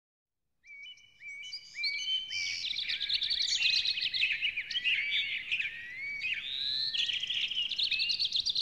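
Birds chirping and singing, many short overlapping calls and whistles, fading in about a second in and growing busier.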